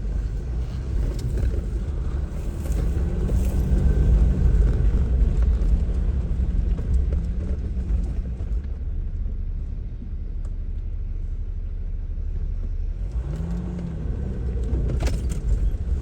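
Jeep driving slowly over a rough dirt trail: a steady low rumble of engine and tyres, with the engine pitch rising and falling twice, about three seconds in and again near the end. A short knock sounds near the end.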